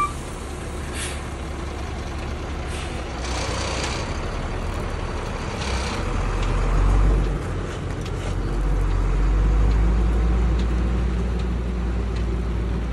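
Diesel dump truck engine running under load as the truck works the chip spreader, its rumble swelling about halfway through and again later. A few short hisses sound in the first half.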